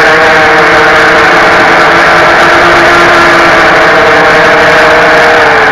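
FPV racing quadcopter's brushless motors and propellers whining steadily in flight, heard close from the onboard camera, with several steady pitches that sag slightly near the end as the throttle eases.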